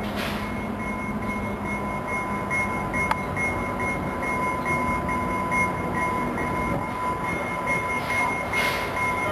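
Commuter train led by an EMD F59PH diesel locomotive running steadily into a station, with a bell ringing rapidly, about twice a second.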